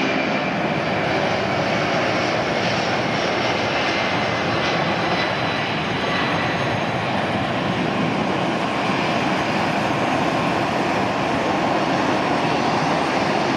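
Twin Pratt & Whitney PW2040 turbofans of a Boeing 757-200 freighter at takeoff thrust through the takeoff roll, lift-off and climb-out: a steady, loud wash of jet noise.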